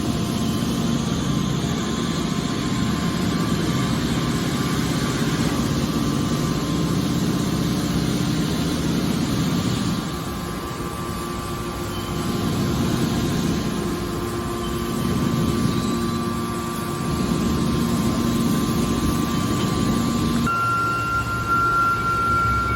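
Hydraulic metal press baler running: a steady machine drone with a faint whine, changing abruptly about ten seconds in and again near the end.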